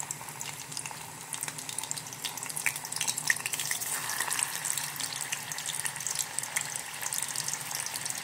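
Cassava pieces frying in hot oil in an aluminium pot: a steady sizzle with many small crackles.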